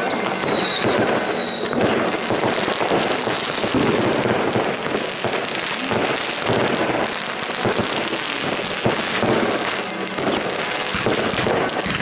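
Fireworks going off in a dense run of crackling and bangs. Two descending whistles sound in the first two seconds.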